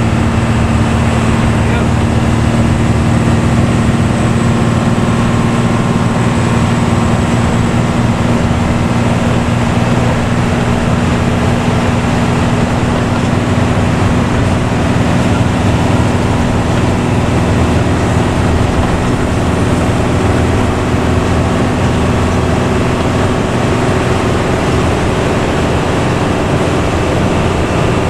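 Luragung intercity bus, fitted with a growling "ngorok" exhaust, running steadily on the road: an even, deep engine drone with road noise and no change in pace.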